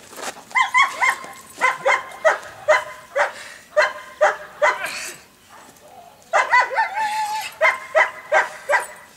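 German Shepherd barking for a jute bite tug in bite-work training: repeated sharp barks, about two to three a second, in two runs with a short pause midway.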